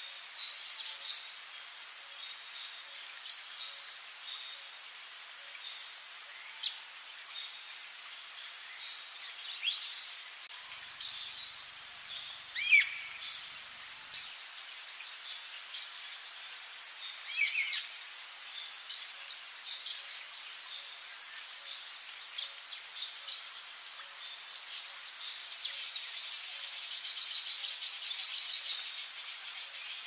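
Forest ambience: insects droning steadily at a high pitch, with short bird calls every second or few and a fast pulsing trill for a few seconds near the end.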